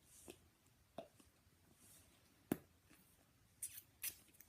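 Near silence broken by a few faint clicks and taps of small objects being handled, the loudest about two and a half seconds in and two more close together near the end.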